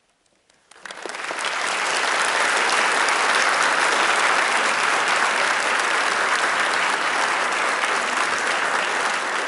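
Large concert-hall audience applauding, starting abruptly about a second in after a moment of near silence and holding steady.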